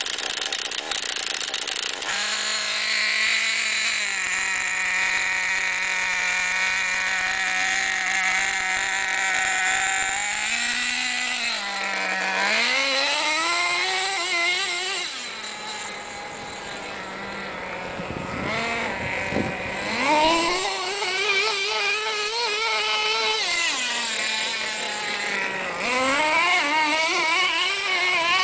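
Tamiya TNX 5.2 RC truck's nitro glow engine idling with a steady buzz for the first ten seconds or so, then revving up and down again and again as the truck drives, its pitch rising and falling with the throttle.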